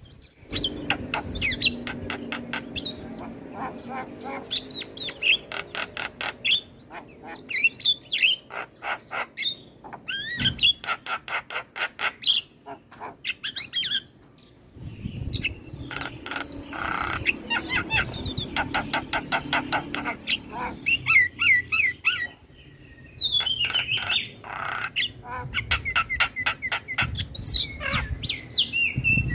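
Javan myna (jalak kebo) song: fast rattling runs of clicks mixed with whistled notes and harsh squawks, coming in phrases with short breaks between them.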